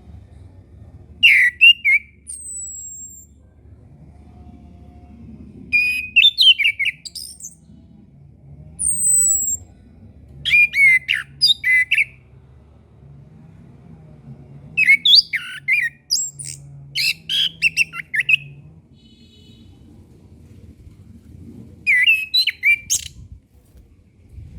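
Chestnut-capped thrush (anis kembang) singing: short, rapid, complex song phrases about a second long, repeated about six times with pauses of a few seconds, and a couple of thin high descending whistles in between.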